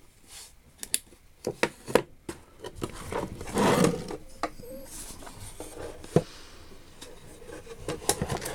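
Small hand tools being handled: a few sharp clicks and knocks of metal and wood, with a rubbing, sliding noise about three seconds in.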